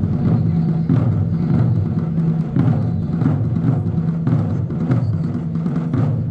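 Ensemble of Japanese taiko drums being played, deep drum tones in a dense, continuous rhythm with strong accented strokes coming roughly every half second or so.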